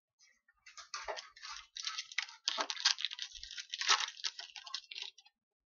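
Crinkling and rustling of a trading card pack's wrapper and cards being handled, a rapid crackly run of sound lasting about four and a half seconds.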